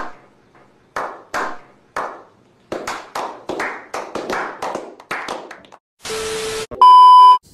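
A few men clapping slowly, single claps about a second apart, quickening to several claps a second. Near the end comes a brief burst of television static hiss, then a loud steady beep.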